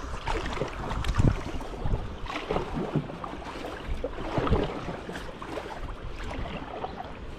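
Water splashing and sloshing around a kayak in irregular bursts, with a few low knocks, busier in the first few seconds and settling into a steadier wash near the end.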